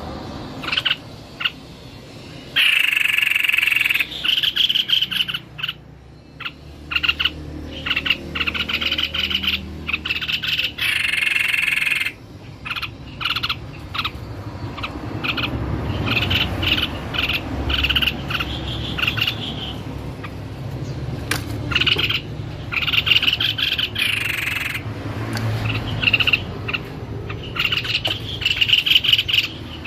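White-bibbed babbler (tepus leher putih) singing vigorously: repeated bursts of rapid chattering notes, some brief and some running for a second or two.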